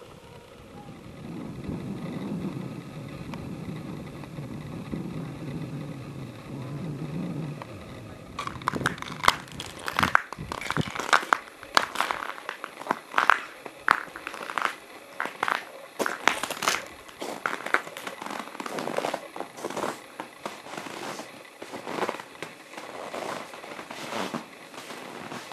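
Ice crampons crunching on ice and frozen snow, step by step. Sharp, irregular crunches come several times a second from about eight seconds in, after a low steady rumble.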